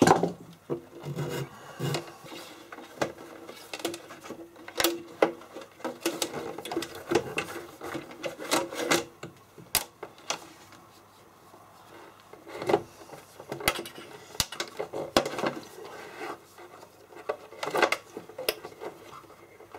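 Old MIG torch lead and its gas hose being pulled out of a welder's wire-feed compartment by hand: irregular clicks, knocks and rubbing of cable and tubing against the metal case, with a quieter stretch about halfway through.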